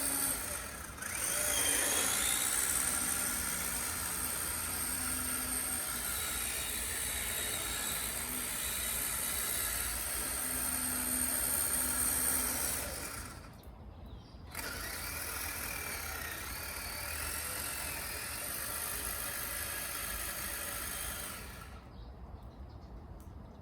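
Electric motor and gear train of a Kyosho Blizzard RC tracked vehicle, converted from nitro to electric, running with a steady mechanical whine. It cuts out for about a second partway through and drops away near the end.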